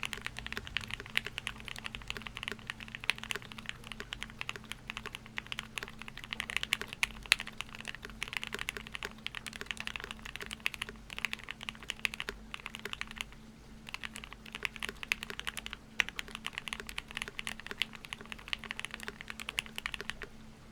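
Continuous typing on a custom mechanical keyboard: a Jelly Epoch 75% gasket-mount case with C3 Equalz Tangerine linear switches lubed with Krytox 205g0, on an FR4 plate with GMK keycaps. It makes a dense run of key clacks with a brief pause about two-thirds of the way through.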